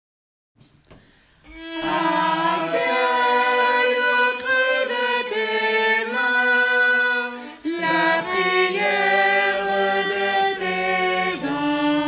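After a second or so of silence, slow instrumental music begins: violin with other instruments playing long, held notes.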